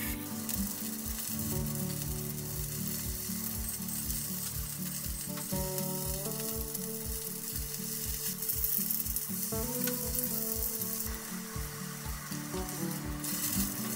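Enoki mushroom clusters sizzling as they shallow-fry in hot oil in a frying pan, a steady crackling hiss. Background music with a steady beat plays underneath.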